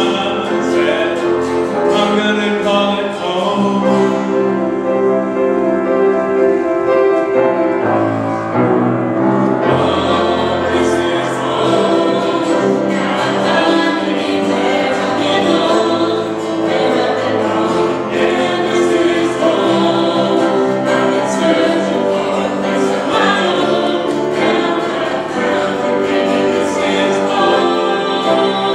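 A small group of men's and women's voices singing a song together, accompanied by acoustic guitars.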